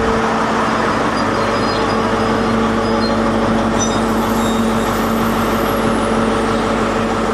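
InterCity 125 (Class 43) power car's diesel engine idling, a steady hum over even engine noise.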